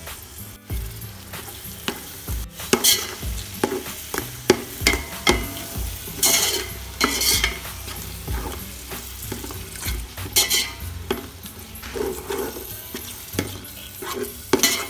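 Perforated metal spoon stirring thick curd into fried onion and mutton masala in a metal cooking pot: irregular scrapes and knocks of the spoon against the pot, some louder strokes about three, six to seven and ten seconds in, with the mixture sizzling.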